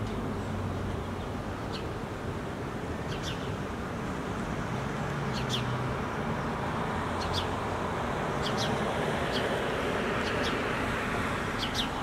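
Steady rumble of distant city traffic, with brief high-pitched bird chirps breaking in every second or so, often in quick pairs.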